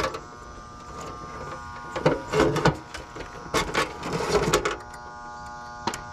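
Handling noise as hands push wiring about inside a condenser unit's sheet-metal control compartment: rustling and clicking in a few short clusters, a couple of seconds in and again around four seconds, with one last click near the end. A steady electrical hum runs underneath.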